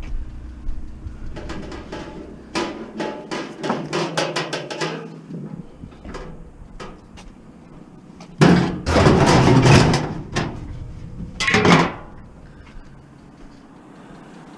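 Galvanized steel garbage cans clattering and knocking against other scrap as they are shoved into a vehicle's packed cargo area: a run of quick knocks, then a loud clatter lasting about two seconds just past the middle, and a shorter one soon after.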